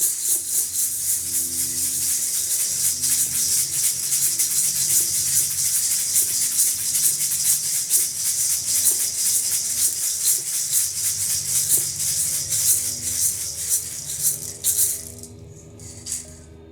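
A hand rattle shaken fast and continuously over low held notes; the shaking stops about fifteen seconds in, leaving a few last faint shakes.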